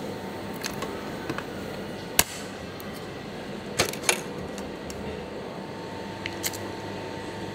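Steady machine hum with a faint held tone, broken by a handful of short sharp clicks and clacks. The loudest is a little over two seconds in, a quick pair comes near four seconds, and two lighter ones come towards the end.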